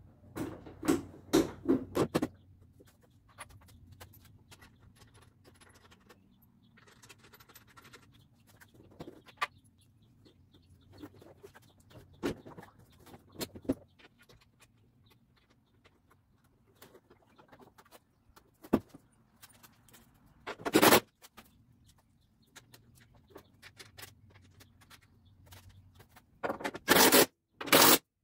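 Scattered clicks, knocks and scrapes of hand work on a car's headlight and front-end wiring. A cluster of louder knocks comes at the start, a single one about three-quarters of the way through, and several more near the end.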